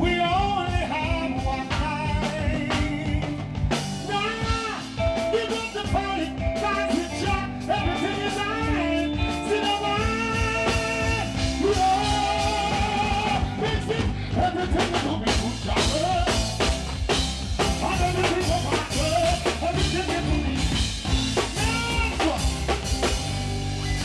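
Live reggae band playing, with drum kit and bass, as a male singer sings over it through a stage microphone.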